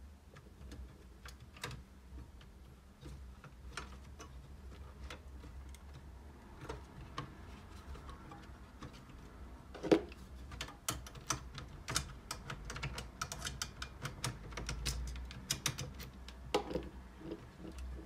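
Light clicks and taps of hands handling the metal chassis and hard drive caddy of an all-in-one PC, sparse at first and coming thick and fast in the second half, with one sharper knock about ten seconds in. A faint low hum sits underneath.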